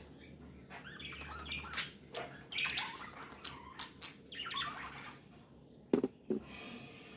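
Pet budgerigars chattering, with quick chirps and warbling notes. Two sharp taps or knocks about six seconds in are the loudest sounds.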